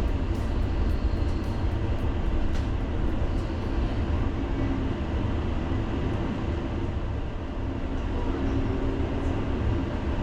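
Tram running along its rails, heard from inside the car: a steady low rumble, with a run of light clicks in the first few seconds and a faint steady hum coming in later.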